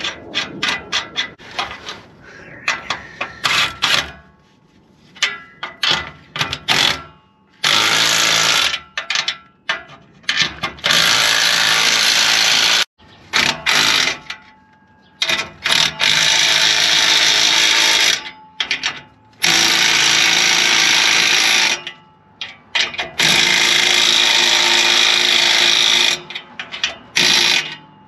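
Cordless power tool driving the nuts of exhaust pipe clamps tight. It runs in about five bursts of two to three seconds each, after a few seconds of rapid clicking.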